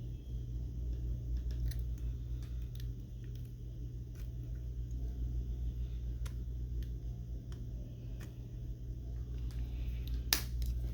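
Light, scattered clicks and taps of small repair tools working on an iPhone during a screen replacement, with one sharper click near the end, over a steady low hum.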